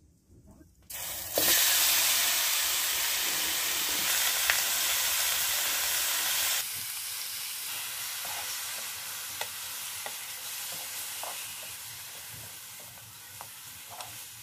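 Food frying in a hot pan: a loud sizzle starts suddenly about a second in, drops abruptly to a quieter sizzle about halfway, and fades slowly with scattered small pops.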